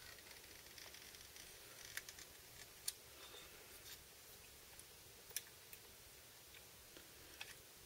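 A few faint, sparse clicks of a toy John Deere 450D excavator's boom and bucket joints being worked by hand, over near-silent room tone.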